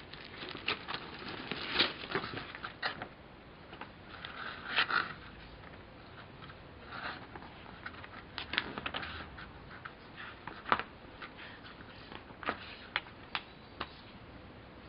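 Plastic model kit parts and their bags being handled: scattered light clicks, ticks and short crinkling rustles, the sharpest click about eleven seconds in.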